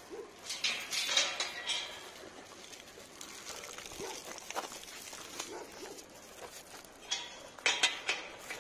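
Footsteps and scuffing on dry dirt as someone walks among dogs, with two louder bursts of scuffing noise, one about half a second in and one near the end. A dog makes a few faint sounds.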